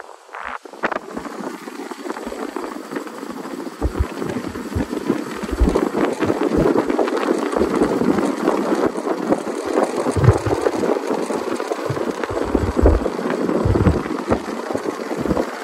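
Wind rushing over the microphone of a moving motorcycle, with low buffeting thumps every few seconds and the bike's running and road noise beneath it.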